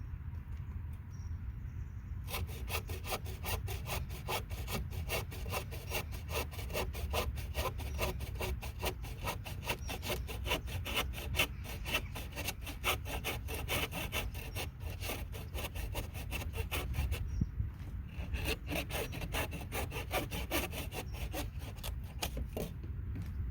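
Hand saw cutting with rapid, even back-and-forth strokes: a long run starting about two seconds in, a short pause, then a shorter second run.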